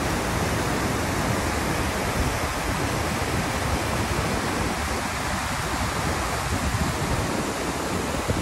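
Steady rushing noise, an even loud hiss with a rumbling, fluttering low end.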